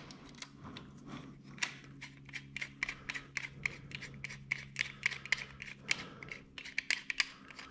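Light, irregular metal clicks and ticks from a hand rivet nut tool as a rivnut is threaded onto its mandrel and the tool is handled.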